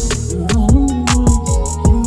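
Instrumental passage of a remix beat: deep bass drum hits that slide down in pitch, several in quick succession around the middle, over sharp ticking percussion and a held, slightly wavering melodic tone.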